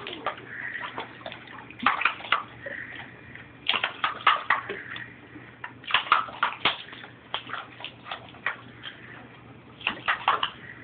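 A dog's jaws snapping shut again and again as it bites at a squirting stream of water, the snaps coming in quick clusters every second or two, with water spraying and splashing.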